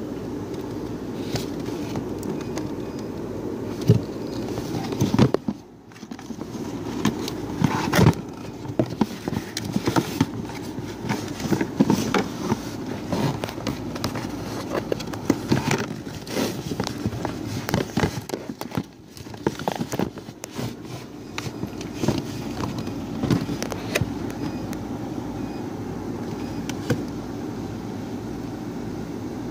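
Handling noises from the jumper cables and their packaging: irregular clicks, knocks and rustles, over a steady low hum.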